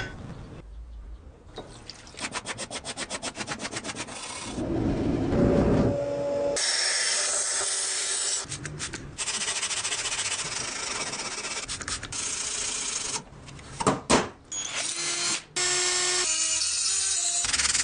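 Metalworking on an old knife, likely a power tool grinding or sanding the blade, in several short clips that start and stop abruptly. A fast, even scraping of about eight strokes a second gives way to long stretches of steady, harsh grinding noise.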